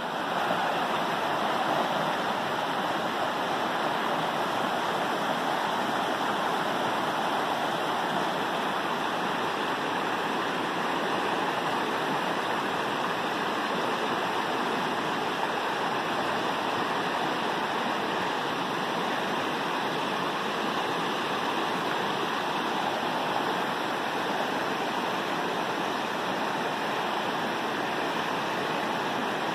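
Rocky mountain creek rushing over boulders and small rapids: a steady, even rush of water.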